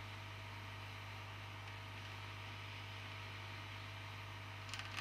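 Aoyue INT852A+ hot air rework station running, its air flow giving a steady hiss over a low hum.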